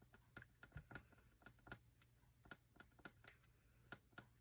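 Faint, irregular small taps and clicks of a paintbrush working on a palette while mixing watercolour paint, over a low steady hum.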